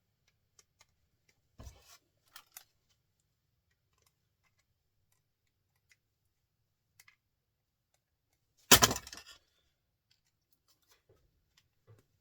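Small metal clicks and scrapes of hand tools working on small scrap parts, broken about nine seconds in by one loud, short clatter of metal.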